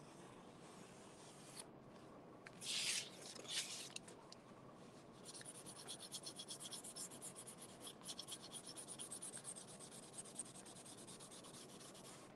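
Sharpie marker scratching over corrugated cardboard, worked on its broad side in quick back-and-forth strokes to thicken a line. The strokes come in a fast, even rhythm through the second half. A couple of brief louder scuffs come about three seconds in.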